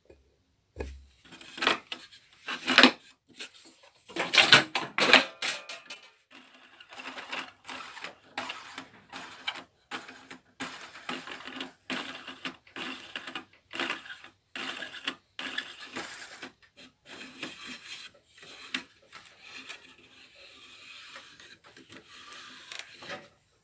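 Irregular clicks, knocks and rattles of a wooden floorboard piece being handled and clamped in a bench vise, with the sharpest knocks near the start.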